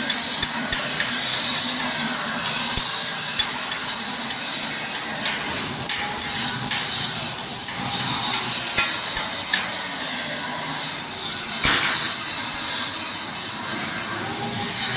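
Flux-cored arc welding on steel: a steady crackling hiss, with scattered sharp metal knocks throughout and a louder knock about twelve seconds in.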